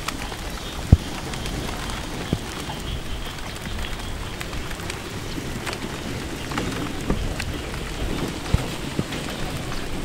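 Steady rain falling, with a low rumble and scattered sharp pops; the loudest pop comes about a second in.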